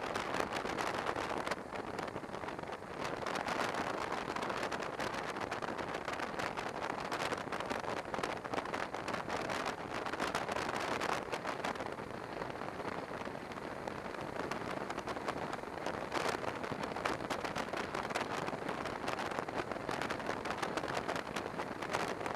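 Wind rushing over the microphone of a camera on a moving motorcycle at road speed, a steady hiss with rapid crackly buffeting.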